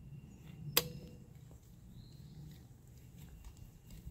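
Heli-coil installation tool being turned by hand, driving a stainless steel thread insert into a tapped hole in the engine block: faint working noise over a low background rumble, with one sharp metallic click that rings briefly about a second in.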